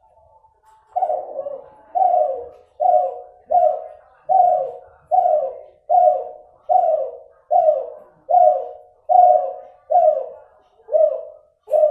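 Spotted dove (derkuku, Kelantan-cross F2 bird) cooing in a long regular series of about fourteen short falling coos, a little over one a second, starting about a second in. Its voice is one the breeder calls still nasal ('sengau'), with an inconsistent number of end notes.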